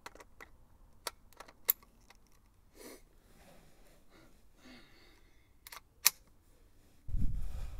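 Metal and plastic clicks and snaps as a KJW KC-02 gas airsoft rifle is handled, with two sharp snaps standing out, about two seconds in and about six seconds in. A loud low rumble starts about seven seconds in.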